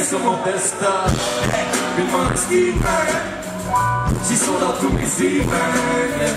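Live band music with singing from the stage. A steady deep drum beat comes in about a second in.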